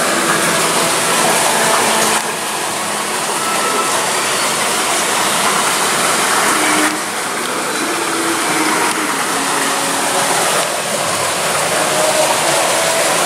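Loud, steady rushing noise with faint distant voices underneath; the level drops abruptly about two seconds in and again about seven seconds in.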